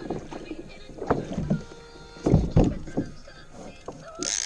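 Irregular knocks and low thumps of fishing rods and gear being handled on a plastic pedal kayak, with water around the hull. Near the end a sudden loud hissing buzz starts.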